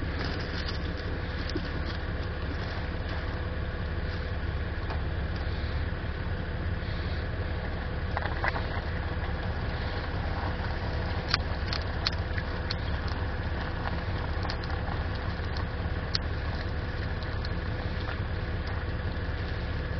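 A steady low rumble with a constant hum, broken by a few sharp crackles and pops from the thermite charge as it burns and pours molten steel into the rail weld mold.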